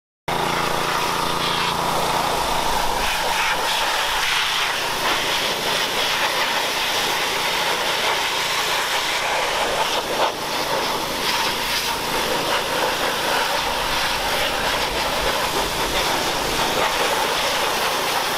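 Pressure washer running steadily, its wand spraying a hissing jet of water onto a stripped-down metal ATV frame to clean it.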